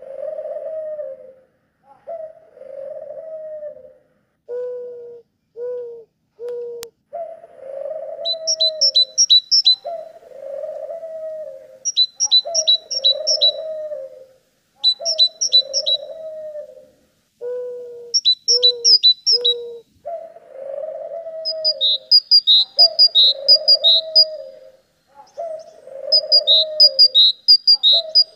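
A dove cooing over and over, a low call repeating about every two seconds with a few shorter notes in groups of three. From about eight seconds in, a small bird joins with short bursts of rapid, high chirps.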